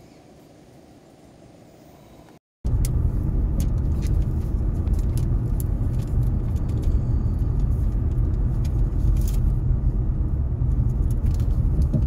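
Faint open-air ambience for about two seconds, then a sudden cut to a steady, loud low rumble of a Jeep Renegade Trailhawk driving at road speed, heard from inside the cabin: engine, tyre and wind noise with scattered light clicks.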